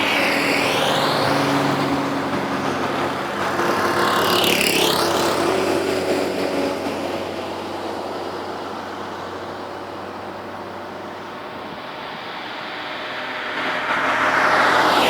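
Road traffic with cars passing by: one passes close just after the start and another about four and a half seconds in. A quieter stretch of distant traffic follows, then another vehicle approaches near the end.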